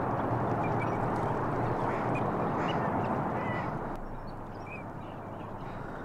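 A flock of ducks calling, with several short, high whistles from green-winged teal drakes, the whistle the drakes give in display. The background calling drops off about four seconds in.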